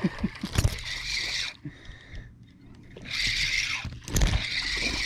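Fishing reel being cranked to bring in a small hooked trout, whirring in two spells with a pause of about two and a half seconds between, plus a few low thumps.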